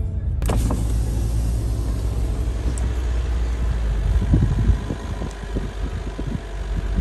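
Car driving along, a steady low rumble of engine and road. A few knocks and rattles come in from about four seconds in, and the rumble drops off as the car slows.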